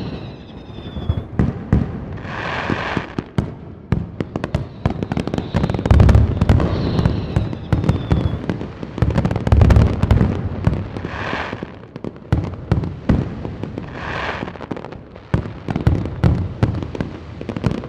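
Fireworks going off: continuous crackling with heavy booms, hissing bursts, and whistling rockets that slide down in pitch near the start and again about seven seconds in.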